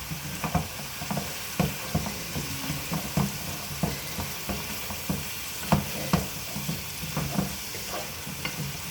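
Ground meat sizzling as it browns in a frying pan, while a utensil stirs and breaks it up, knocking and scraping against the pan about twice a second.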